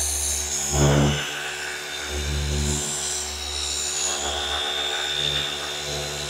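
Flex FX3331 24V cordless gear-driven orbital polisher running steadily with a pad on car paint: a steady motor whine over a low hum. A brief voice sound comes about a second in.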